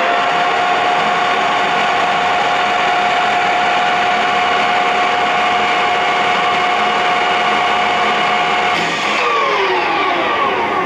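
1981 Clausing Colchester 8054 geared-head lathe running unloaded, its headstock gears whining at a steady pitch. A little before the end the spindle is stopped, and the whine slides down in pitch as it winds down.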